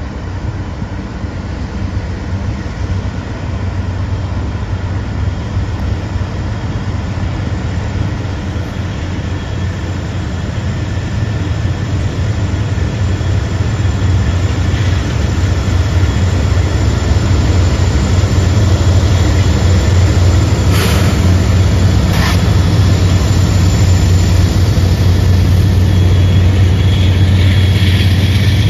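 Diesel engines of CSX freight locomotives running as the lead units approach and pass close below, a deep steady drone that grows louder throughout. Two brief sharp clicks stand out about three-quarters through.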